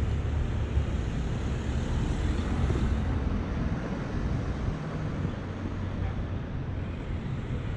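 Steady low rumble of street traffic, with a small car driving slowly past close by.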